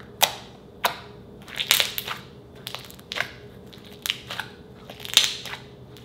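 Purple slime kneaded and pressed by hand against a countertop, giving a string of irregular sharp pops and crackles, the loudest about five seconds in.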